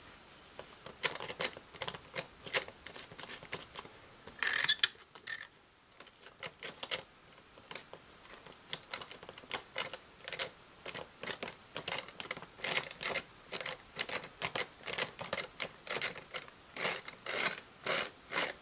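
Tri-ang toy locomotive moving fitfully along a length of tinplate track, giving irregular clicking and crackling that comes thicker and louder near the end: the dirty, tarnished track and wheels are making poor electrical contact.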